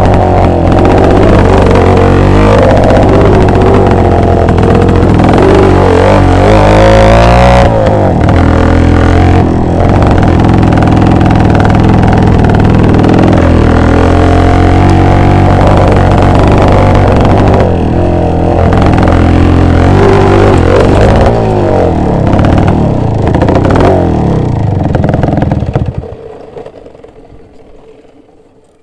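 Two-stroke motorcycle engine running loud and being revved up and down repeatedly, then fading away about three seconds before the end.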